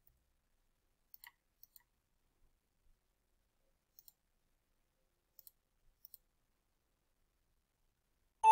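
A few faint, scattered computer mouse clicks. Right at the end a loud chime with several steady tones begins: the desktop alert's notification sound.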